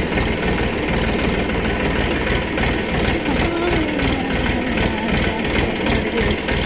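Tractor's engine running steadily as the tractor drives along, its firing a fast, even low pulse.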